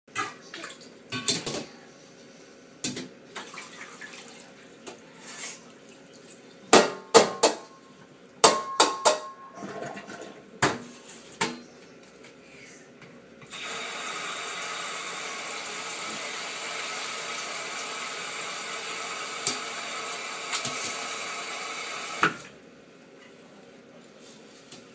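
Rice being washed by hand in a stainless steel bowl in a sink: scattered clacks and clatter of the bowl and grains, loudest around seven to nine seconds in. Then the tap runs steadily for about nine seconds and shuts off with a click.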